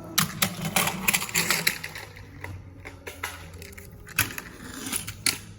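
Toy trains clattering and clicking as they are handled and moved, in a quick irregular run of small plastic knocks over a low steady hum.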